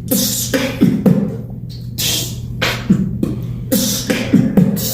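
Human beatboxing: sharp hissing snare-like strokes alternate with short low vocal tones that drop in pitch, over a steady low hum.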